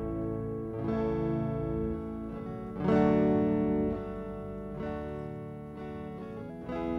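Soft instrumental worship music, slow held chords changing about every two seconds with no singing, the loudest chord about three seconds in.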